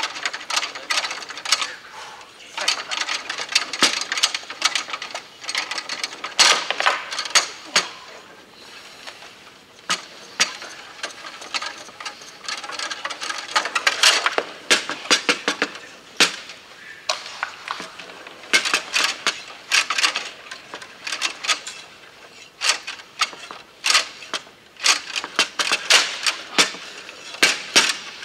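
Foosball in play on a Bonzini table: irregular sharp clacks as the ball is struck by the rod figures and knocks against the table, with the rods rattling as the players work them. The clacks come sometimes singly and sometimes in quick bursts of rattling.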